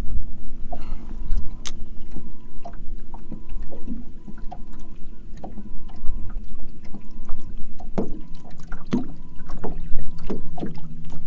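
Onboard noise of a small fishing boat on a windy lake: a steady low hum with wind rumbling on the microphone. Scattered light knocks and ticks come through, and a faint high tone comes and goes in short pulses.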